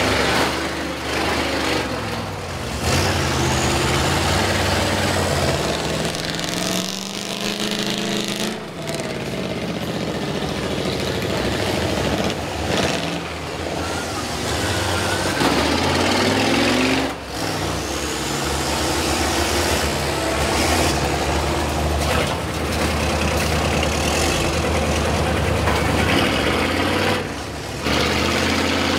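Big school bus engines revving hard under load as the buses shove against each other, the engine note rising and falling repeatedly.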